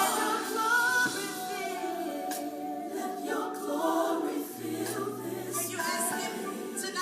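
A choir singing a gospel song, mostly unaccompanied, with several voices in harmony.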